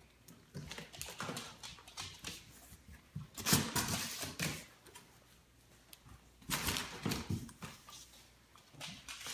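A large cardboard box being opened: the flaps are pulled back and the plastic wrap inside rustles, in two louder bursts of rustling about three and a half and six and a half seconds in. Among these are short scattered sounds from a small dog.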